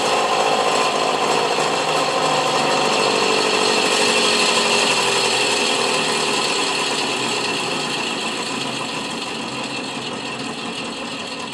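Electric hobby motor spinning the metal collector drum of a home-built electrospinner, a continuous whir. Its pitch drifts slowly down and it grows gradually quieter over the second half as the drum slows.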